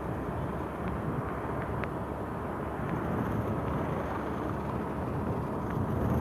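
Steady low rumble of a motorcycle being ridden along a road: engine, tyre and wind noise mixed together, with no clear rise or fall.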